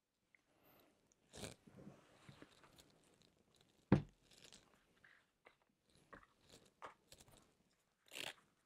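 Playing-card boxes and cards handled on a cloth close-up pad during a one-handed multiple-deck production: soft cardboard rustles, scrapes and small clicks, with one sharp tap about four seconds in as a card box is set down on the pad, and a shorter rustle near the end.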